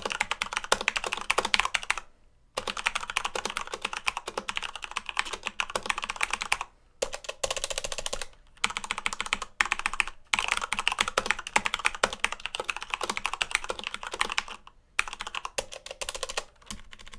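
Fast typing on a Corsair K65 LUX mechanical keyboard with Cherry MX Red linear switches: a dense clatter of keystrokes in runs of a few seconds, broken by several brief pauses.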